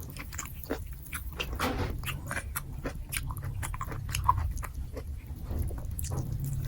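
Close-miked chewing and mouth sounds of a person eating nasi gila (Indonesian fried rice): a run of short, irregular wet clicks and smacks over a steady low hum.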